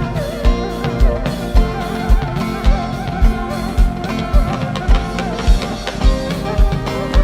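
Instrumental music: a steady kick-drum beat about two times a second under sustained chords and a plucked guitar-like melody.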